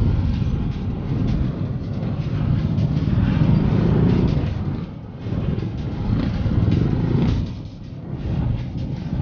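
Motor scooter engines running at low speed and revving in close traffic, a low rumble that swells twice and eases between.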